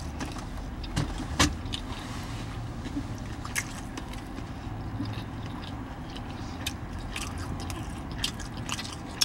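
Steady low vehicle rumble heard inside a parked car, with scattered small clicks and crunches of someone chewing food.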